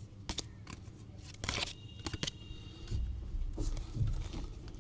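Trading cards being handled and slid past one another: a few short rustles and soft clicks, then a couple of soft low bumps about three seconds in.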